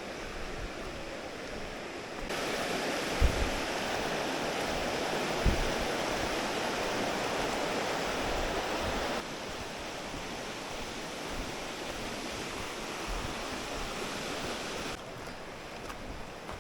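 Mountain stream water rushing steadily. Its level jumps up abruptly a couple of seconds in, drops back about nine seconds in and drops again near the end, with two short low bumps a few seconds in.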